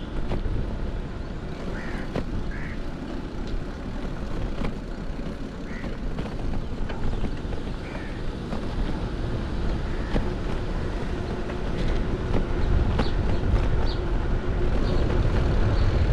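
Wind rushing over the microphone of a moving bicycle, with the tyres rumbling over brick paving; the rush grows louder near the end. A few short bird calls come in the first few seconds.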